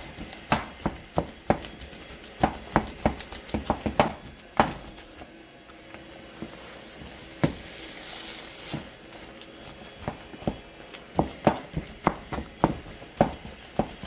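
Wooden spoon mashing boiled cassava in a metal frying pan: irregular knocks and scrapes of the spoon against the pan, about two or three a second, easing off in the middle where a soft sizzle comes through.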